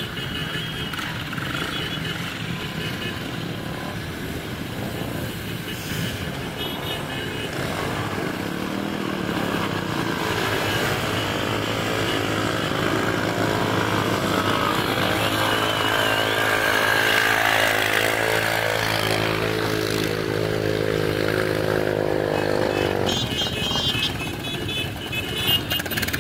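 A column of motorcycles riding past one after another at low speed, their engines running together; from about halfway through, one steady engine note stands out over the rest and stops a few seconds before the end.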